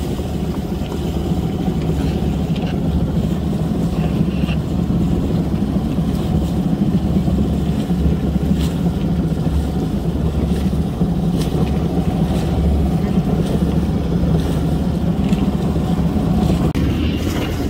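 Steady low drone of a boat's motor running under way, with light wind noise on the microphone.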